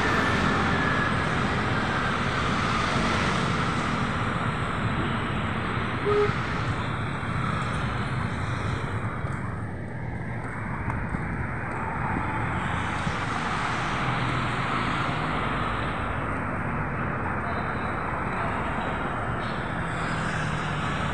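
Steady road traffic noise from cars and motorcycles passing on a busy city boulevard, with a brief short sound about six seconds in.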